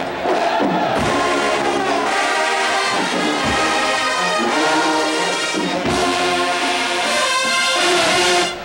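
College marching band playing loudly in the stands: massed trumpets, trombones and sousaphones, with a few bass drum hits. The music drops off sharply just before the end.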